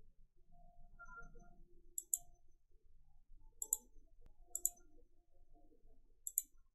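Faint computer mouse clicks: four pairs of short, sharp clicks spread over several seconds.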